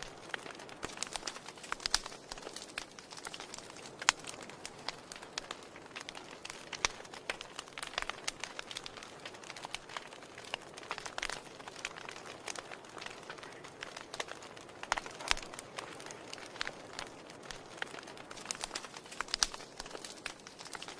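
Wood fire crackling in a fireplace: a steady soft hiss under frequent irregular sharp pops and snaps.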